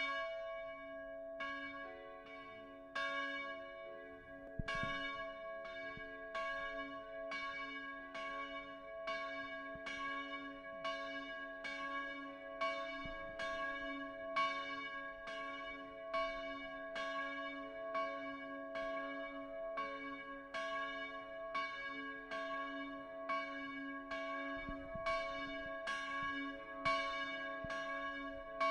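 Church bells ringing: a few spaced strikes at first, then evenly paced strikes a little more than one a second, their tones ringing on and overlapping.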